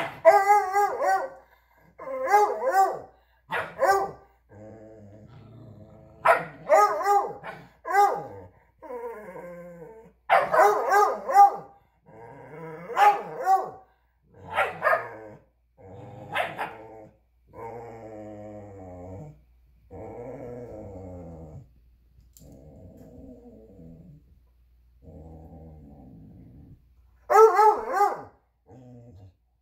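Two dogs play-fighting: an older beagle barks and bays in loud, repeated bursts, with lower, drawn-out play growls in between. The second half is mostly quieter growling, then one more loud bark near the end.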